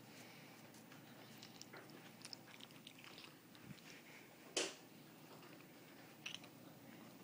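A dog chewing quietly: faint scattered clicks and smacks, with one sharper click about four and a half seconds in.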